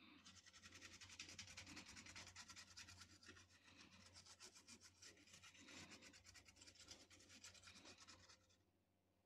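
Faint, fast scrubbing strokes as a surface is cleaned with isopropyl alcohol, stopping about eight seconds in.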